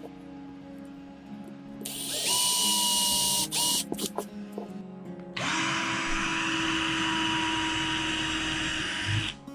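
Power drill boring into a metal block, running in two bursts: a short one about two seconds in and a longer steady one of about four seconds in the second half, each with a high whine over the cutting noise.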